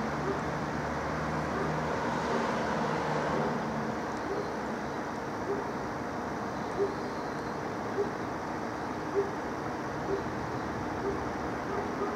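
Italian level-crossing bell dinging about once a second while the barriers are down, over a steady background of road and outdoor noise. A low engine hum runs under it for the first few seconds, then fades.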